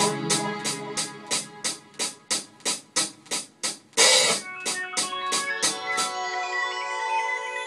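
A freshly made beat playing back through studio monitors: sharp drum hits about three a second over keyboard chords. About six seconds in, the drums drop out and only held keyboard chords remain.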